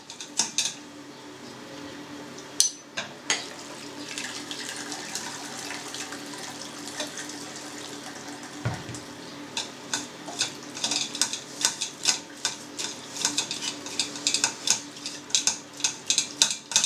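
Boiling water poured from a porcelain teapot into a steel pot of diced pork back fat, scalding the fat, for several seconds; then a metal spoon clinks and scrapes against the pot many times as the fat pieces are stirred apart.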